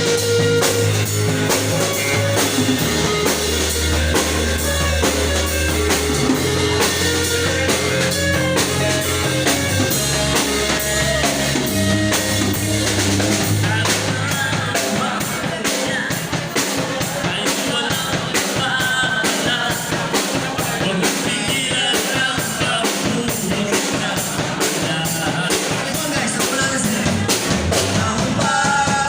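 Background music with a drum kit and singing; the bass drops out about halfway through.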